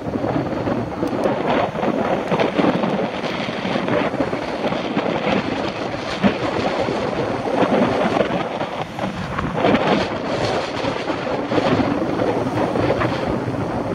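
Wind buffeting a cyclist's camera microphone while riding, an uneven rushing noise with road and traffic noise beneath it.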